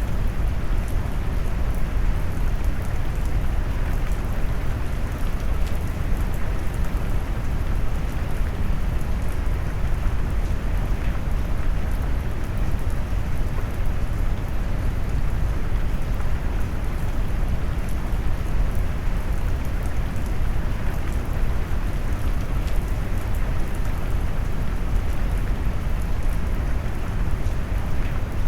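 Steady rain mixed with brown noise, a deep, even rush with scattered raindrop patter on top.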